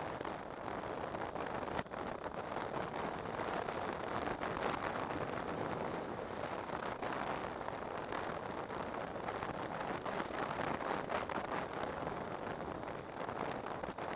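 Steady wind rush and road noise from a motorcycle riding at speed on an open highway, buffeting the camera's microphone.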